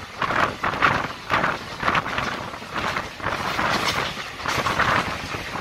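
Indian Railways express passenger coach running at speed, heard from its open doorway: a steady rush of wheel and track noise that swells and falls in irregular surges.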